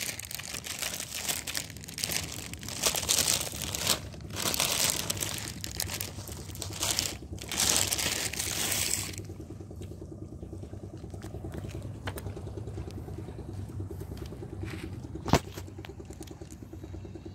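Plastic bag of dry cat food crinkling and rustling in bursts for about the first nine seconds. Then a quieter stretch with a low steady hum and one sharp click near the end.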